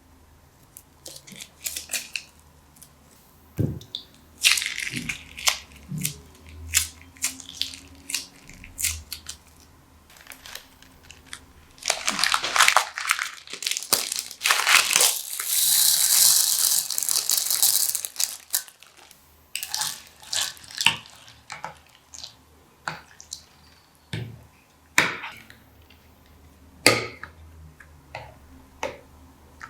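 Colourful plastic bags being crumpled and torn for crunchy slime: sharp crinkling crackles and clicks, with a longer continuous rustle in the middle.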